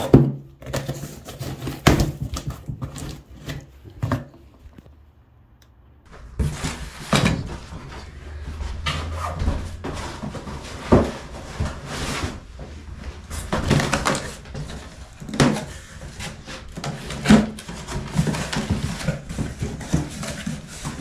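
Hands unpacking a cardboard box of heater parts: cardboard flaps and plastic wrapping rustling, with irregular knocks and thumps as parts and the box are moved, and a brief lull about five seconds in.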